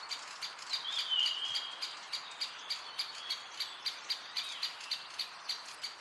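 Great spotted woodpecker giving short, sharp calls over and over, about three a second. About a second in, another bird sings one whistled phrase that falls slightly in pitch.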